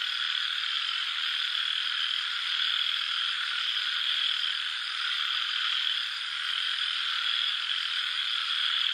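A dense, steady chorus of frogs calling.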